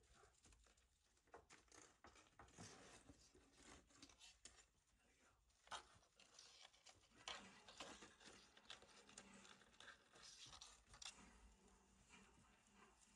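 Faint, irregular rustling and crackling of dry hay as a rabbit noses and pulls at the hay bedding by its nest box.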